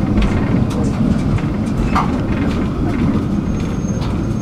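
Tram running along its rails: a steady low rumble with scattered clicks from the wheels over the track.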